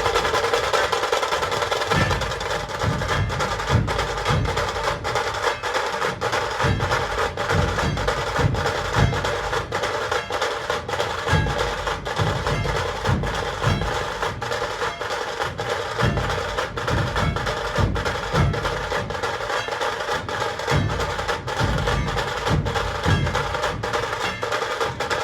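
A dhol-tasha ensemble playing loudly: deep dhol beats recur steadily under a dense, fast rattle of tasha strokes.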